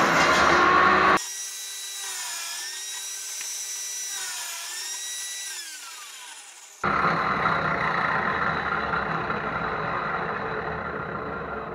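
Benchtop table saw with a freshly sharpened blade cutting through a length of wood for about the first second. The saw then runs with a quieter whine that dips in pitch twice and falls away. About seven seconds in, louder motor noise returns and slowly fades as the saw winds down.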